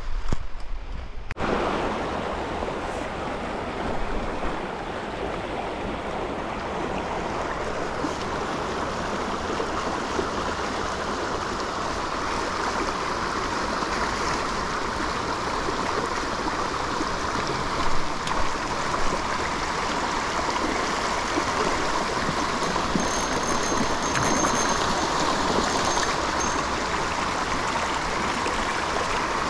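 Small river running: a steady rush of flowing water that starts abruptly about a second and a half in and holds even throughout.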